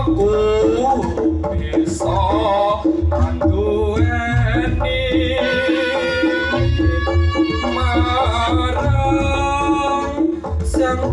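Reog Ponorogo gamelan music played loud over a sound system: kendang drums beating a steady low rhythm under a held, wavering melody line, with occasional bright metallic strokes.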